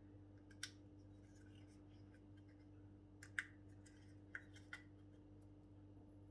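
Near silence over a steady low hum, broken by a few faint clicks and light scrapes: fingers handling a small battery tea light over a ceramic dish, the clearest click about three and a half seconds in.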